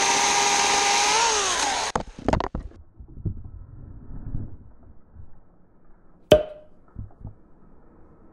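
Portland 14-inch 9-amp electric chainsaw running under load as it cuts through an overhead branch, its pitch bending just before the motor cuts off about two seconds in. Several knocks and rustling follow, with one sharp knock about six seconds in.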